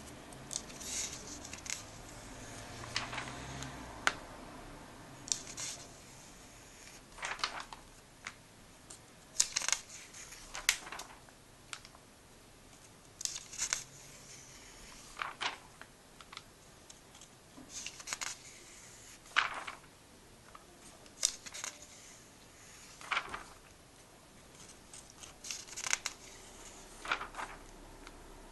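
A comic book's paper pages turned one after another by hand, each turn a short, papery swish, about one every two seconds.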